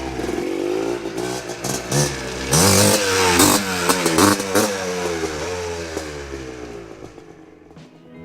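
1985 Yamaha Tri-Z 250's single-cylinder two-stroke engine revving up and down several times as the three-wheeler is ridden hard for wheelies, then fading away over the last couple of seconds.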